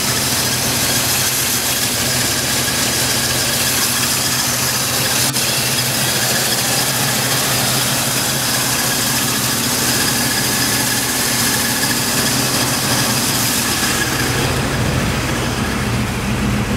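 1979 Pontiac Trans Am's 403 (6.6 L) V8 idling steadily under a high hiss from the engine bay, running quietly and smoothly. Near the end the hiss fades and the low exhaust note comes up stronger.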